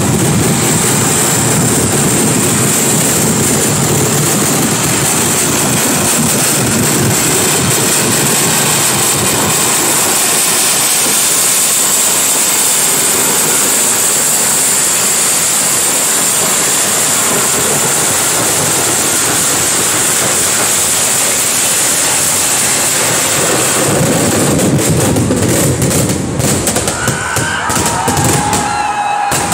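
Kerala temple fireworks finale (vedikettu): a dense, unbroken barrage of firecracker explosions so close together that they merge into one continuous, very loud rumble. About three-quarters of the way through it thins into separate bangs as the display dies down.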